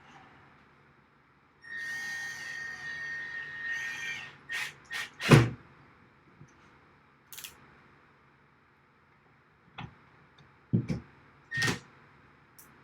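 Cordless drill motor whining for about two and a half seconds as it drives a screw into a rack rail. Several sharp knocks and clicks follow, the loudest about five seconds in, with a brief second spin of the drill near the end.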